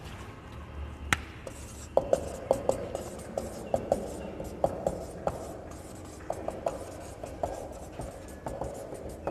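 Marker pen on a whiteboard: a single sharp tap about a second in, then from about two seconds on a run of short, irregular taps and rubbing strokes as the marker is worked across the board.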